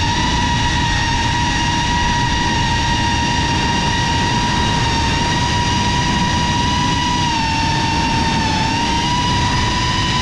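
GEPRC CineLog35 FPV cinewhoop's brushless motors and propellers whining at a steady high pitch over a rushing hiss, the pitch dipping briefly and recovering about eight seconds in as the throttle eases.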